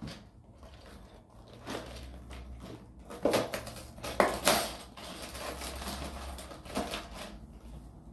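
Small cardboard box being handled and its end flap pulled open: scraping and rustling of cardboard, loudest in sharp bursts about three seconds and four and a half seconds in.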